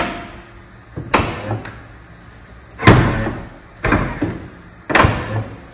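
VW T5 van tailgate being leaned against its lock and drawn shut by the power-closing aid: a series of about five heavy clunks, the loudest about three seconds in, as the newly replaced lock catches and the tailgate closes firmly.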